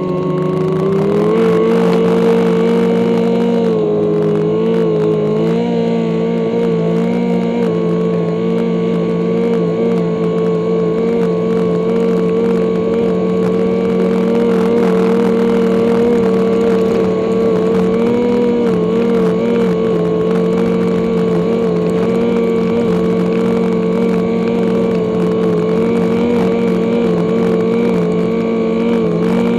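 Snowmobile engine running hard and steady as the machine drives across snow, heard from on board. Its pitch rises about a second in as it speeds up, then holds level with a couple of brief dips as the throttle eases.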